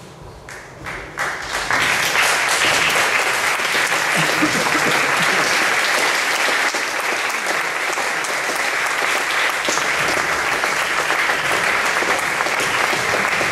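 Audience applauding: a few scattered claps at first, swelling within about two seconds into steady, full applause.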